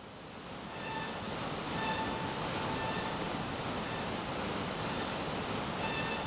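Muddy flash-flood water pouring over a waterfall. It is a steady rush of water that grows louder over the first couple of seconds and then holds.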